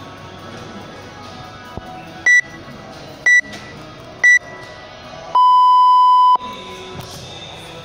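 Workout timer counting down to the start of the workout: three short high beeps about a second apart, then one long lower beep lasting about a second. Background music plays throughout.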